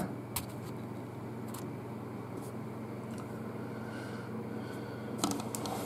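Second-generation June smart oven running in air-fry mode: its convection fan gives a steady, quiet whir over a low hum.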